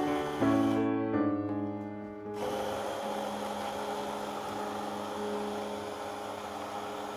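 Soft piano music for about the first two seconds, then an electric blender running steadily, blending the makhana milkshake.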